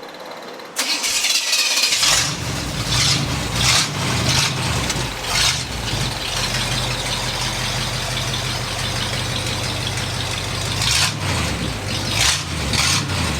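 Small-block 350 V8 in a 1963 Ford Vanette truck cranking and starting about a second in, then idling, with several quick blips of the throttle after it catches and again near the end.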